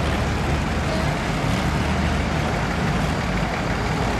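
Antique farm tractor engine running steadily at low speed, a low even drone under a broad outdoor hiss.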